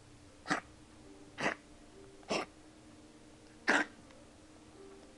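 Puppy with kennel cough coughing four times in short, sharp hacks, about a second apart, the last one the loudest.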